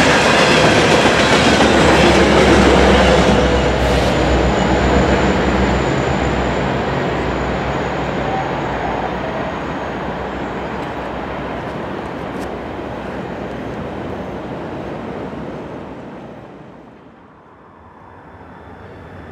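A train rolling away on the mainline, its wheels running on the rails. The noise fades steadily as it recedes and drops off sharply near the end, leaving a quieter steady background.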